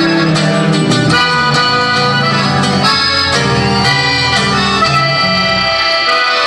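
Norteño trio playing an instrumental passage: accordion carrying the melody over guitar and electric bass.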